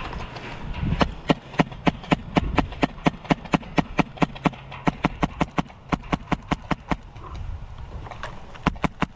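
Airsoft rifle firing a rapid string of single shots, about four sharp cracks a second for some six seconds, then a few more scattered shots near the end.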